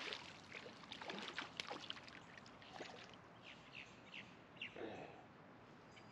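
A fish splashing at the water's surface right at the ledge, the splashes dying away within the first couple of seconds. After that comes a faint outdoor background with a few short, high bird chirps around the middle.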